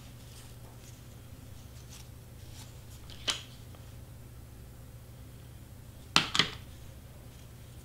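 Handling sounds at a craft table over a low steady hum: a light click about three seconds in, then two sharp clacks just after six seconds as a cordless hot glue gun is set back down on the cutting mat.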